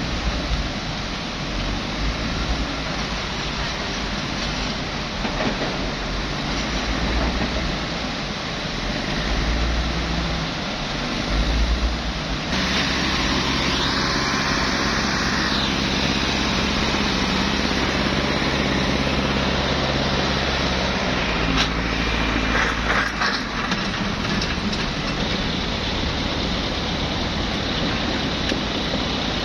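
Heavy diesel machinery engine running steadily at a work site; from about twelve seconds in it runs louder with a stronger engine hum for about ten seconds, then settles back.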